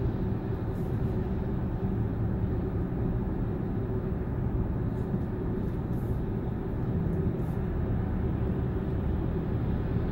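Steady low road and engine noise inside the cabin of a moving car.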